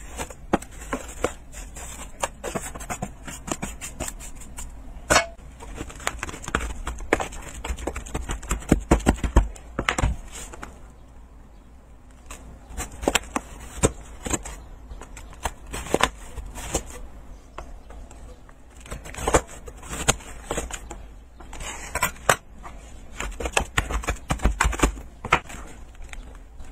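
Shaved ice in a plastic tub being scraped, cut and pressed with a metal bench scraper: irregular crisp crunches and scrapes, thickest about a third of the way in and again near the end.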